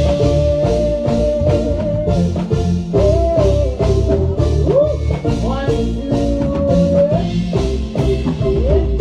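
Live band playing at a sound check, drum kit keeping a steady beat under a thick bass line. A melody line is held out long and bent in pitch over the top.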